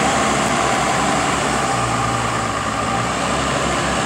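Steady running noise of a motor vehicle, with a low engine hum under an even wash of road or wind noise.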